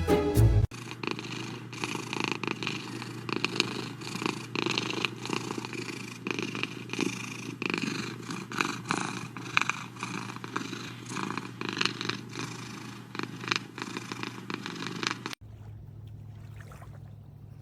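Domestic cat purring steadily, a continuous rough flutter. It cuts off abruptly about fifteen seconds in, leaving a faint low hum.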